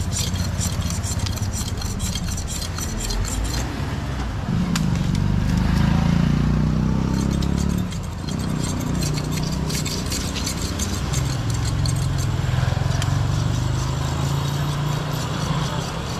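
Steady engine rumble of passing road traffic, swelling as a vehicle goes by close about four seconds in and dropping away at about eight seconds. Light rapid clicking and scraping runs over it.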